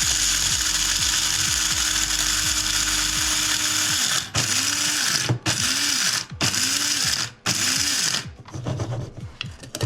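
Electric coffee grinder grinding beans: one continuous run of about four seconds, then four short pulses, the motor's pitch rising and falling as it spins up and stops each time.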